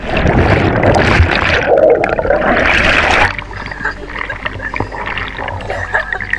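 Sea water rushing and bubbling around a submerged action camera, loud for about three seconds, then quieter splashing and lapping once the camera is back at the surface.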